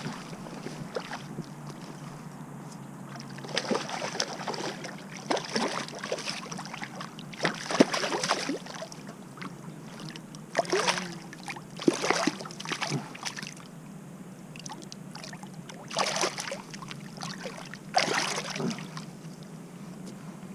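Water splashing and sloshing in a shallow stream, in irregular bursts of a second or two with pauses between.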